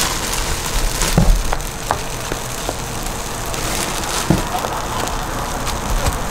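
Melted butter sizzling on a hot flat griddle, with a few low thumps as slices of white bread are laid down on it.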